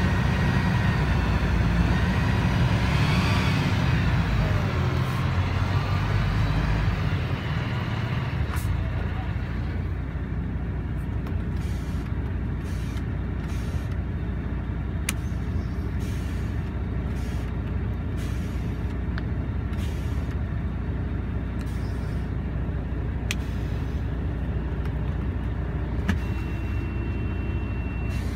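MAN TGA 390's 10.5-litre straight-six diesel heard from inside the cab, running in neutral at raised revs, then dropping back to a steady idle about eight seconds in. A few sharp clicks sound over the idle, and a short high tone comes near the end.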